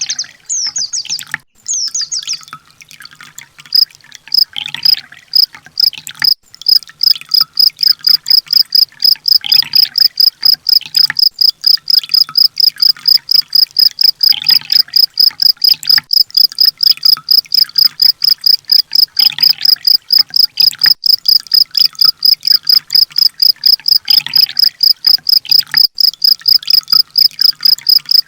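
Recorded song for training cage birds: a few quick high trills at the start, then an unbroken series of high chirps about four times a second, like a cricket, with a short lower bird call repeating about every five seconds.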